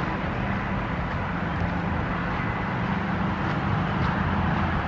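Steady rumble of traffic on a nearby highway, a continuous wash of road noise with no single vehicle standing out.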